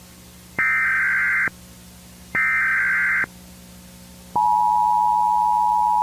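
Emergency Alert System tones: two bursts of SAME digital header data, each just under a second long with a short gap between, then the steady two-tone EAS attention signal (853 and 960 Hz) starting about four seconds in, which announces that an emergency alert message follows.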